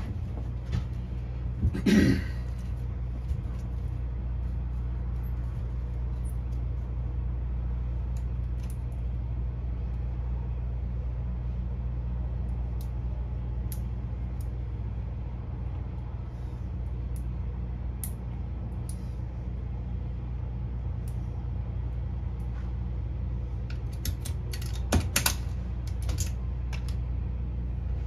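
A steady low mechanical hum runs throughout. Over it come a short rustling burst about two seconds in and a cluster of light clicks and taps near the end, as the fusion splicer, fiber cleaver and fibers are handled.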